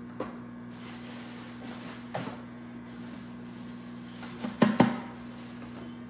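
A few light knocks and clacks, the loudest a quick double knock about two-thirds of the way through, over a steady low hum.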